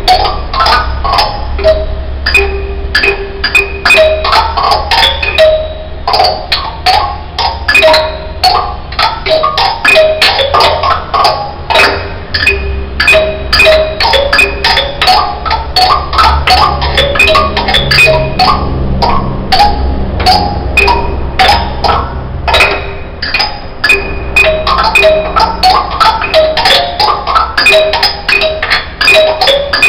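Instrumental music of short struck, mallet-like notes and sharp percussive clicks over a steady low bass. The phrase repeats roughly every twelve seconds.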